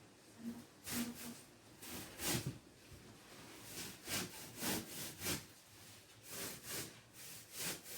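A run of short rubbing strokes, about two a second in uneven clusters, starting about half a second in.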